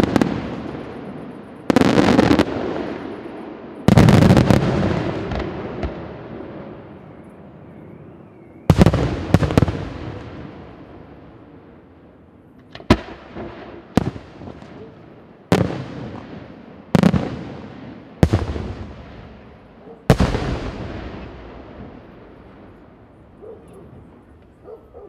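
Senatore Fireworks aerial shells bursting in a night display: about ten sharp bangs, each followed by a long rolling echo that fades over a few seconds. The heaviest booms come in the first few seconds, then single reports every second or two, fewer toward the end.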